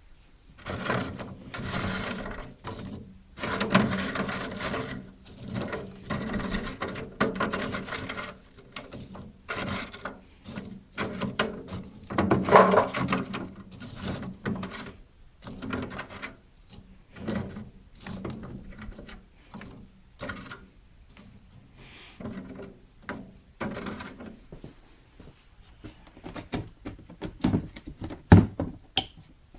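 Charcoal briquettes being moved and stacked by hand on a grill's charcoal grate: an irregular run of dry knocks and scrapes. A few sharper knocks come near the end.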